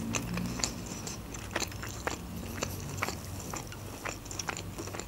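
Close-miked chewing of a bite of rolled flatbread wrap, with small wet mouth clicks a few times a second.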